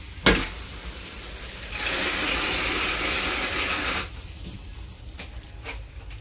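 Push-button flush valve on a train toilet pressed with a sharp clack, then water rushes through the pipe and bowl for about two seconds before cutting off abruptly.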